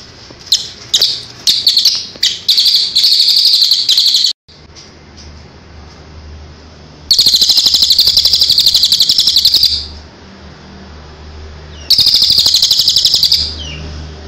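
Crested jay (cililin) giving its rattling 'tembakan' calls. A few sharp separate notes come faster and faster and run into a rapid rattle. After a pause comes a rattle of about three seconds, then a shorter one near the end.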